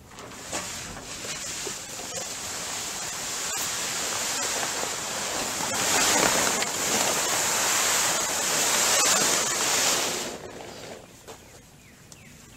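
Silver plastic tarp, the boat's winter cover, rustling as it is pulled off and dragged along. It grows louder as it passes close by and stops about ten seconds in.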